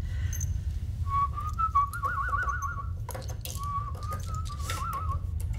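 A person whistling a slow, warbling tune in two phrases, the pitch wavering up and down, over a steady low rumble. A few faint clicks fall between the phrases.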